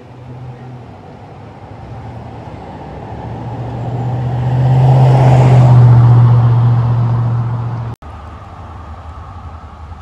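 Mercedes-Benz 190E (W201) driving past close by: engine hum and tyre noise build up, are loudest about five to six seconds in, then fade. About eight seconds in the sound cuts abruptly to a steadier, quieter car sound.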